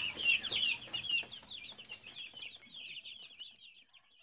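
A flock of 11-day-old broiler chicks peeping, many short falling chirps overlapping, over a steady high hiss, all fading out toward the end.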